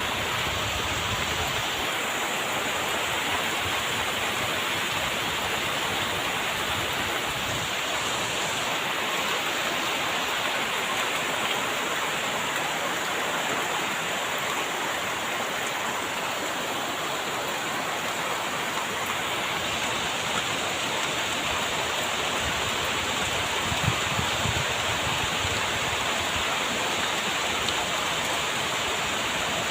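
Heavy rain pouring down, a steady dense hiss with a few faint drop ticks.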